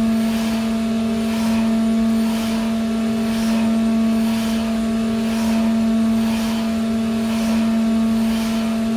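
High-speed pantograph test rig running: a steady electric-machine hum with a few higher steady tones, and a swishing hiss that swells and fades about once a second.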